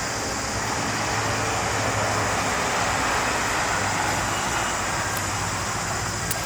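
Road vehicle passing: a steady rush of engine and tyre noise that swells slightly in the middle and eases off, over a low steady hum.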